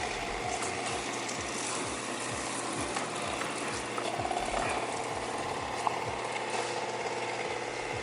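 Shark IQ robot vacuum running: a steady mechanical whir of its motor and brushroll with a continuous rattling.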